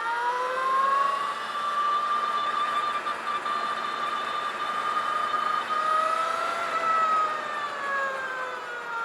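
Energica Eva electric motorcycle's drive whine, loud, a high tone with several overtones that climbs as the bike speeds up, holds steady, then falls away near the end as it slows.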